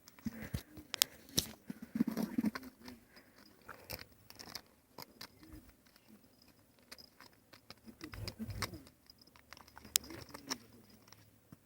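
Scattered soft clicks, scuffs and rustles from a house cat playing and grappling with a hand, with a slightly louder cluster about two seconds in and a soft low rumble near eight and a half seconds.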